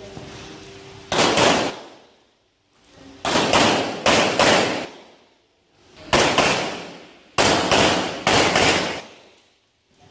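Rock Island Armory Tac Ultra FS HC pistol fired about a dozen times, mostly in quick pairs, in several strings separated by pauses of a second or two; each shot is sharp and loud with a short echoing tail.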